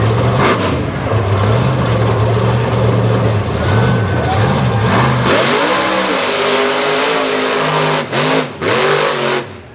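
Mud bog truck's engine running loud, with a wavering pitch as the throttle is blipped at the start line. About five seconds in it revs up hard as the truck launches. The revs cut out briefly twice near the end, then drop away.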